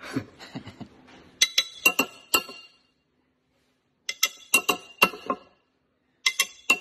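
Glass beer bottle being struck in three quick bursts of three or four sharp clinks, each clink ringing briefly.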